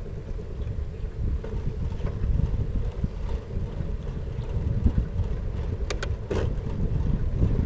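Wind buffeting the microphone of a camera on a moving bicycle, a fluctuating low rumble, with a few short sharp clicks about six seconds in.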